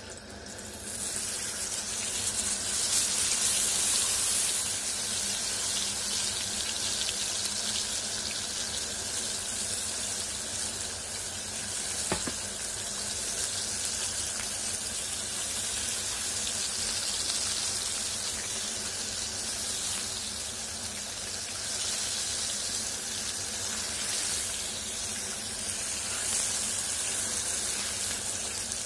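Masala-coated whole fish sizzling in shallow oil on a hot iron tawa. The hiss swells about a second in as the fish goes into the pan, then holds steady.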